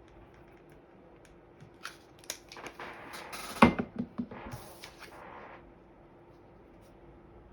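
Cardstock being handled and pressed together: paper rustling and small clicks, with one sharp knock about halfway through followed by a few lighter taps.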